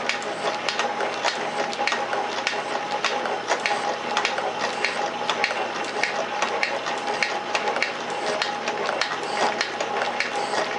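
Metal shaper running, its ram stroking back and forth while facing a naval bronze steam engine cylinder casting: a continuous clatter of clicks and knocks over a steady whine.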